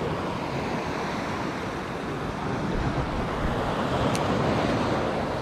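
Sea washing against the rocks, with wind buffeting the microphone: a steady rushing noise that swells a little about four seconds in, with one faint tick.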